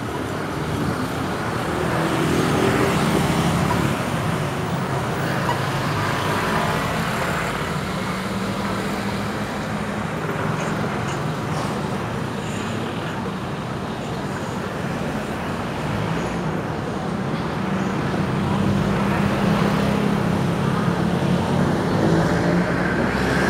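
Road traffic: motor vehicles running and passing close by, their engine hum swelling twice.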